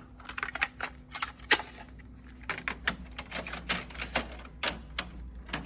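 Irregular sharp plastic clicks and taps from handling the Epson WF-C5890 printer's ink packs and ink cassette as they are fitted into place, over a faint steady hum.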